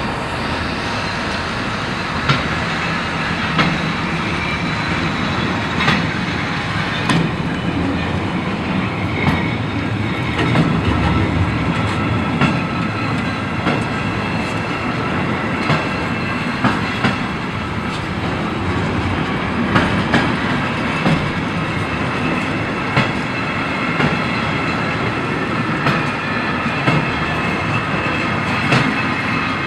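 Train rolling out of a station with a steady rumble, its wheels clacking sharply over rail joints and points every second or two.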